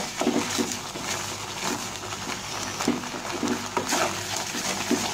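Spatula stirring and scraping thick, reducing milk in a nonstick pan, with irregular soft scrapes and plops as the bubbling milk mass turns into palkova (milk khoa).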